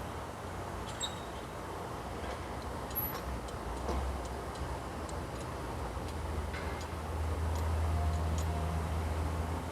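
Car being raised on a jack: scattered light clicks over a low hum that grows louder in the last few seconds.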